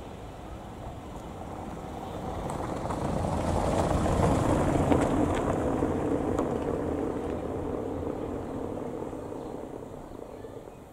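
A small car passing close by and driving away, its tyres rumbling on cobblestones. The sound swells to a peak about four seconds in, then slowly fades.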